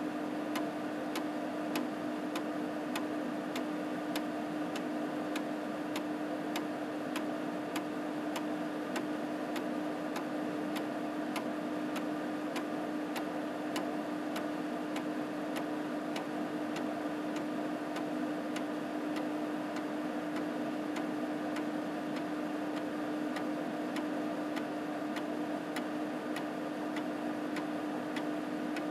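The 3.5-inch drive of an Epson SD-800 floppy unit is reading a 720K disk track by track in a linear verify. Its head stepper clicks evenly, about once every two-thirds of a second as it moves up one track at a time, over a steady hum.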